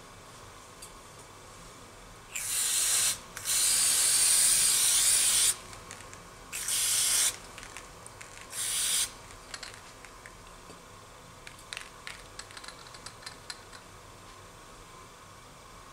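Four short bursts of pressurised spray hissing, the second the longest at about two seconds, followed by scattered light clicks and taps.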